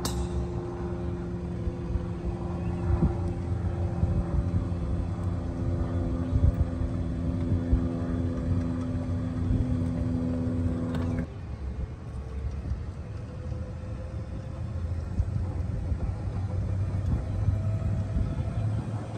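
Golf cart running as it drives, a steady motor hum over road rumble. About eleven seconds in the sound changes abruptly, and then a single whine rises slowly as the cart picks up speed.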